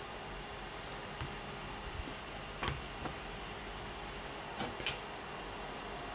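Scattered small sharp clicks and snaps of plastic as support structure is broken and picked off 3D-printed parts by hand, about seven in all, the loudest a close pair near the end. Faint steady hiss underneath.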